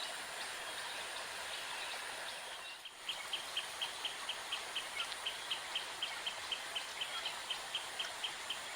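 Steady outdoor hiss, and from about three seconds in a bird calling a rapid, even run of short high notes, about four a second.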